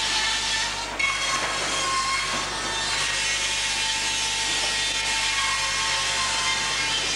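Sawmill saw bench and machinery running with a steady loud hissing din. About a second in, a saw bites into timber and a whining tone comes in over the noise.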